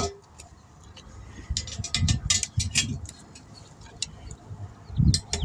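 A car tire being worked off its wheel rim by hand: scattered clicks and scrapes, with a few low thumps about two seconds in and again near the end.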